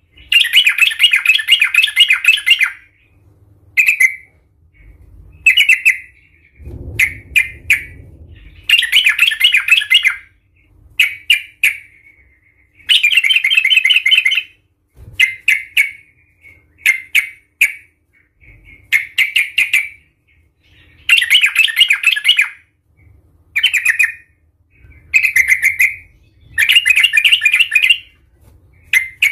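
Yellow-vented bulbul giving loud bouts of fast chattering 'cuk-cuk' calls, each bout about one to two seconds long, with short single notes in the gaps between. This is the agitated, fighting-mood call that keepers play to provoke other bulbuls into calling.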